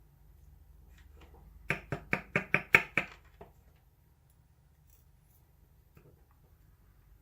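Quick run of about seven sharp knocks, about five a second, from a Schlage-type pin-tumbler lock being handled while its top pins and springs are removed, with a few faint ticks before and after.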